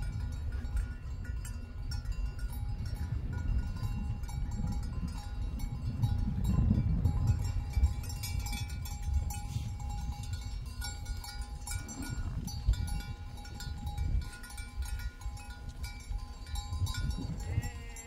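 A flock of sheep on the move, a few sheep bleating now and then, with a bell on one of the animals ringing. A steady low rumble lies under it all.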